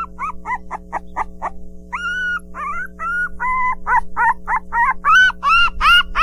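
Newborn Pinscher puppies crying: a rapid run of short, high-pitched squeaks and whines, several a second, with a few longer held cries that rise in pitch. The crying grows louder near the end.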